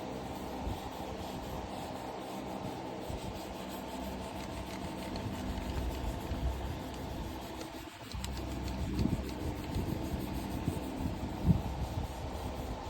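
A machine running steadily with a rubbing, grinding sound over a low mechanical hum. It drops out briefly about two-thirds of the way in, then resumes a little louder with a few knocks, the sharpest near the end.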